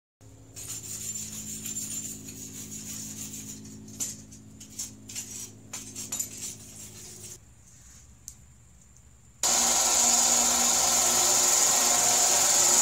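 Quenching hiss and a few metal clinks as the hot steel adze is cooled in a bucket of water and handled with tongs. About nine seconds in, a much louder, steady grinding noise starts suddenly as an electric benchtop grinder works the adze's steel.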